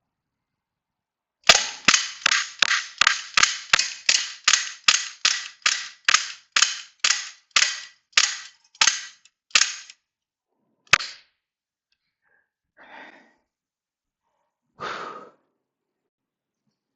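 BB pistol firing a rapid string of about twenty shots at a BB trap, about three a second, then one more shot a second later.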